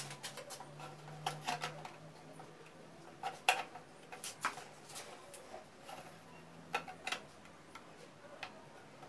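Light, irregular clicks and knocks of PVC pipe and fittings being handled, with a sharper knock about three and a half seconds in.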